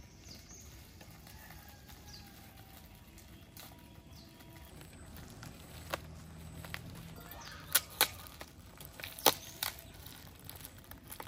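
Plastic bag of clothes being handled and pulled at, with a few short, sharp crinkles in the second half and a quiet outdoor background otherwise.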